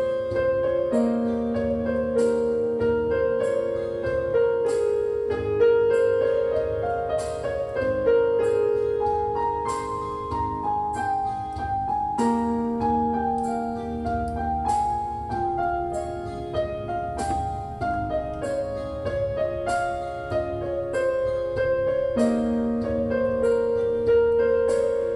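Background piano music: a melody of held notes struck at an even pace, about twice a second.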